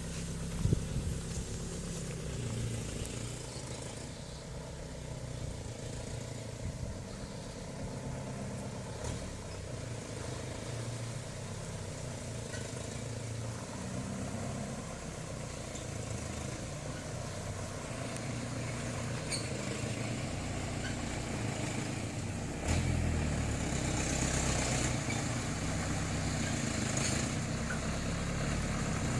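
Diesel engine of a Toyota FJ40 running steadily, with a sharp knock about a second in; the engine grows louder about three-quarters of the way through and stays that way.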